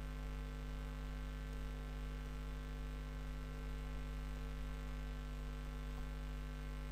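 Steady low electrical mains hum picked up by the recording.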